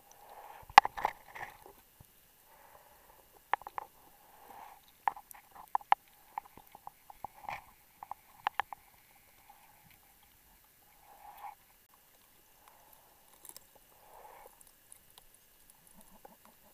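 Irregular sharp clicks and knocks, muffled by the water, from a diver handling a hand-held line reel and gear underwater while laying guideline. The loudest knock comes about a second in, then a run of clicks over the next several seconds, with soft dull rustling between them.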